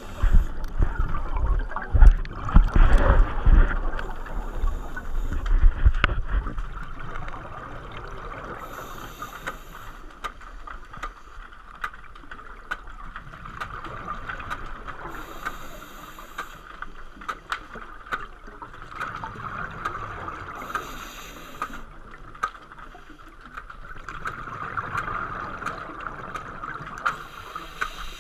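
Scuba diver breathing through a regulator underwater: a hiss of breath roughly every five to six seconds, with bubbling and gurgling between. Heavy low thumps and rumbling run through the first six seconds or so.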